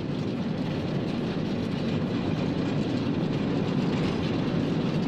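Czech compressed-air mining locomotive running along narrow-gauge field railway track, its steel wheels and running gear making a steady rolling rumble.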